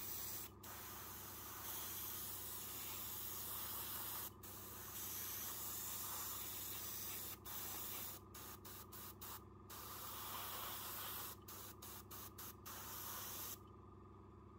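Airbrush spraying paint: a steady hiss of air and paint, broken by brief pauses where the trigger is let off. There is a run of quick short bursts around the middle and again later, and the spraying stops shortly before the end. A steady low hum runs underneath.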